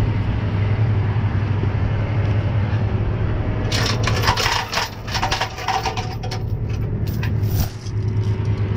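Truck engine idling with a steady low hum. From about four seconds in, irregular metallic clinking and clanking of tow chains and hooks being handled joins it.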